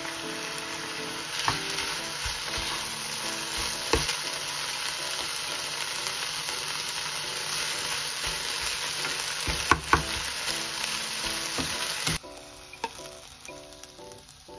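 Stir-fry of fusilli, sliced beef, onion, green pepper and minari sizzling in a hot frying pan, tossed with a wooden spatula that knocks against the pan a few times. The sizzle cuts off suddenly about two seconds before the end.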